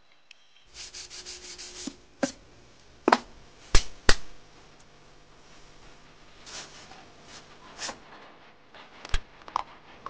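Sandpaper rubbed by hand over a wooden box in a quick run of strokes, about eight a second, about a second in. Then a series of sharp knocks and clunks as things are handled on the metal workbench, the loudest two close together about four seconds in.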